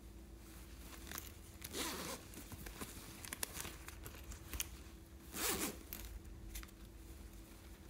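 Zipper of a plush backpack being pulled with two short rasps, one about two seconds in and a louder one about five and a half seconds in, with small clicks and handling rustles between them.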